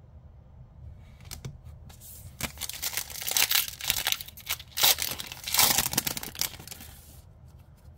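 A foil trading-card booster pack being torn open by hand: crinkling and ripping in several loud stretches starting about two seconds in, dying down to faint rustles near the end.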